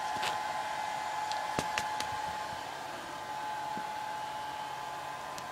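Steady whirring hum of a fan or blower-like appliance running, with a constant tone in it, and a few short light knocks about a second and a half to two seconds in.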